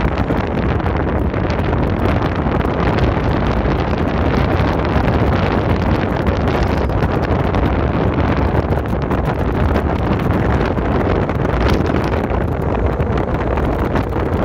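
Wind buffeting the microphone: a loud, steady rushing noise, heaviest in the low rumble, with no breaks.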